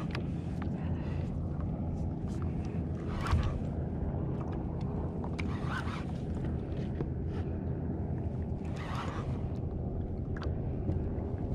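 Water sloshing and slapping against a plastic kayak hull, in short splashes every few seconds, over a steady rumble of wind on the microphone.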